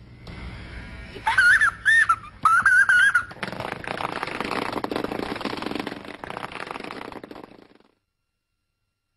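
A high warbling whistle in two short bursts, then a rough rasping noise for a few seconds that stops abruptly.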